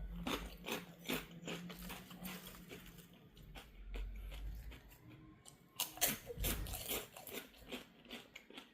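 A person biting and chewing crunchy food close up: irregular crisp crunches, thickest about six to seven seconds in.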